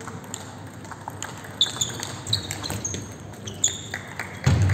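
Table tennis rally: the ball clicking off bats and table in quick succession, with several short high squeaks from shoes on the sports-hall floor in the middle and a heavy thump near the end.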